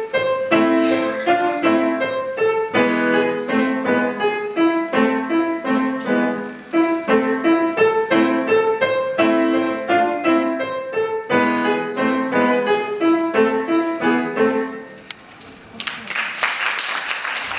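Grand piano played solo, a steady run of notes that ends about fifteen seconds in. After a short pause, the audience applauds.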